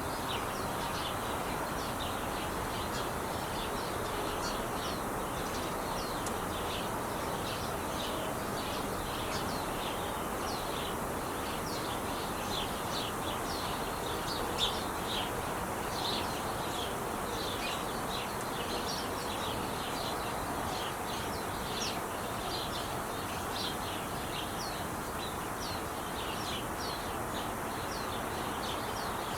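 Steady rush of freeway traffic, with small birds chirping over it, many short high chirps a second.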